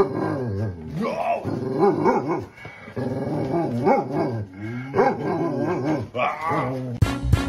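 Large dog vocalizing: a series of drawn-out whines and grumbles that glide up and down in pitch, about one a second. Upbeat music comes in near the end.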